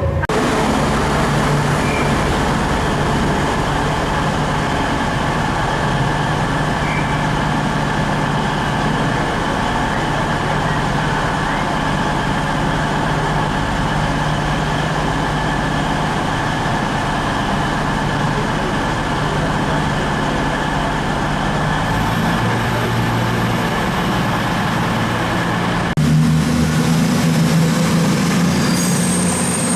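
Steady, loud running noise of a train, with a low hum beneath it. The sound changes abruptly about 26 seconds in, to a deeper hum.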